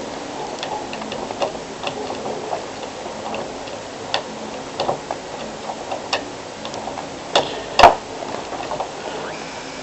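Short, irregular clicks and taps over a steady hiss, with two louder clicks about three quarters of the way through.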